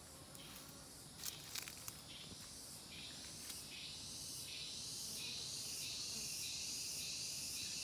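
High-pitched chorus of forest insects, pulsing about twice a second and swelling louder from about three seconds in.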